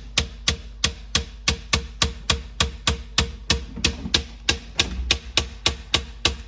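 LG refrigerator making a rapid, regular knocking, about three sharp knocks a second: the loud banging fault it shows at random times.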